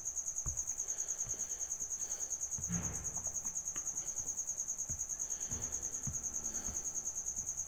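A cricket chirping in a steady, high-pitched trill of rapid, even pulses.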